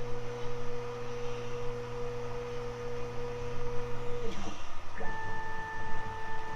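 Nema23 stepper motors of a DIY CNC mill whining at one steady pitch as an axis moves, stopping about four seconds in. After a short pause a new, higher whine starts as the next move runs at a different speed.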